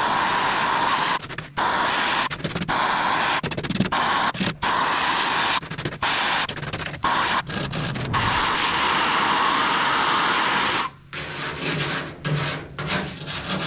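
Thick lead body filler being worked off the roof seam of a 1978 Datsun 280Z with a MAP gas torch and wire brush: a loud, steady rushing noise, broken off abruptly every second or two as if in short cuts.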